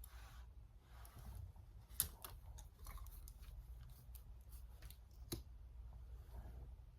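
Small makeup items being handled: a couple of soft brushing or rubbing strokes, then a run of light clicks and taps, two of them sharper, about two seconds in and about five seconds in, like caps or compacts snapping.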